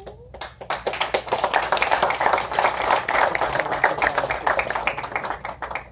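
Crowd applauding: dense clapping that starts about half a second in and dies down near the end.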